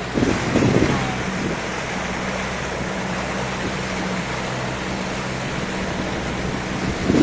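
A boat's engine drones steadily under the rush of water along the hull and wind on the microphone. There are a few short louder surges of water in the first second.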